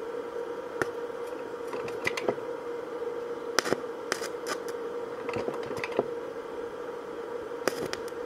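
Stick-welding electrode tapped and scratched against square steel tubing to strike an arc: scattered sharp clicks and short crackles over a steady hum, with a cluster of crackles near the end as the arc catches.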